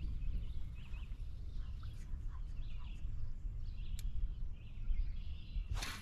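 Wind buffeting the microphone as a steady low rumble, with small birds chirping in short notes throughout. Just before the end a fishing rod swishes sharply through a cast.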